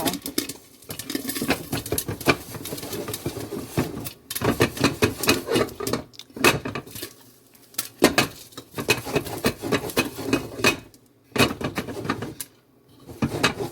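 Popcorn kernels popping in a metal pot on the stove, with rapid, irregular pops and a rattle of the pot. The pops come in dense clusters and thin out near the end as the batch finishes popping.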